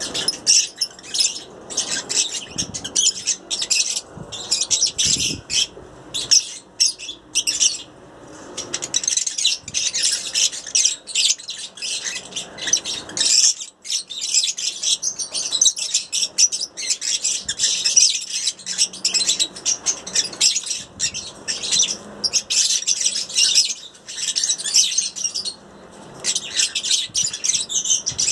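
Lovebirds chattering, a dense, unbroken run of rapid high-pitched chirps and squeaky calls from several birds at once.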